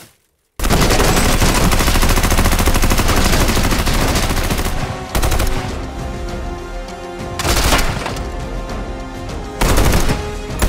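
Film gunfight sound effects: after a moment of silence, about four seconds of rapid, sustained gunfire, then music with a few more short, loud bursts of shots.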